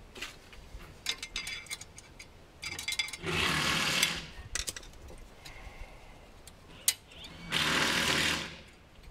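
Brake pad being worked back into the spring clips of a front caliper bracket: light metal clicks and taps, then two rasping metal scrapes of about a second each, a few seconds apart.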